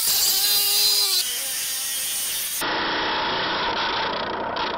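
Angle grinder with an abrasive cutoff disc cutting through a metal plate clamped in a vise: a steady, loud grinding hiss over the motor's whine. About two and a half seconds in, the sound changes abruptly and turns duller.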